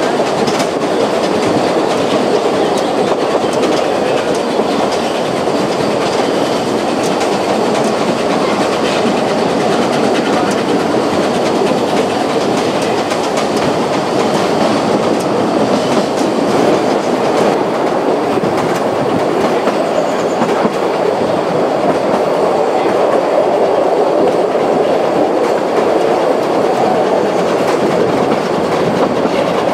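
A 750 mm narrow-gauge steam-hauled passenger train running, heard from a coach's open end platform: a steady rumble and rattle of wheels and coaches on the track.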